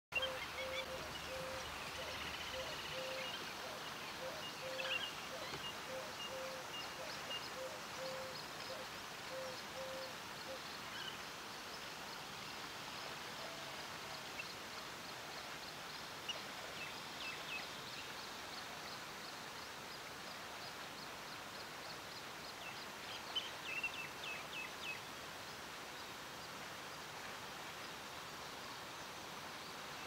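Outdoor ambience with several birds calling over a steady hiss. A low note repeats about twice a second for roughly the first ten seconds, and higher chirps and short rapid series of sharp notes come and go, with a brief cluster about three quarters of the way through.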